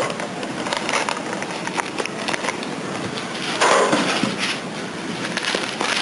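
Plastic packaging rustling and crinkling as it is handled, with a louder burst of crinkling about three and a half seconds in.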